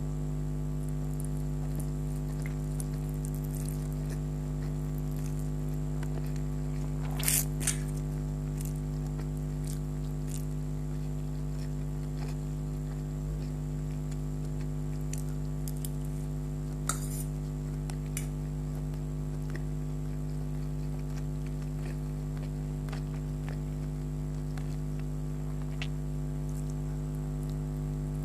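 Close-miked eating of chicken hakka noodles: soft wet chewing and squishing, with a few sharper crackles about seven seconds in and again near seventeen seconds. A steady electrical hum runs under it all.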